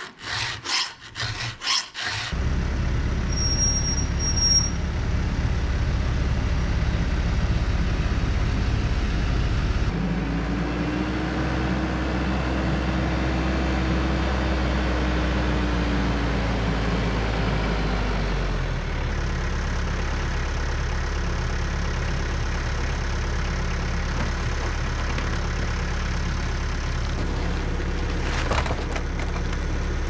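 A few quick strokes of a file on a chainsaw chain, then a TYM 574 tractor's diesel engine running steadily as the tractor drives, its note shifting a couple of times, with a tone that rises and falls in the middle.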